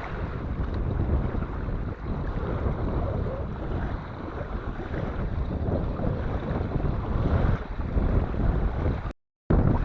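Strong gusty wind buffeting the microphone, a dense low rumble that swells and eases, with waves on the water beneath it. The sound drops out completely for a moment near the end.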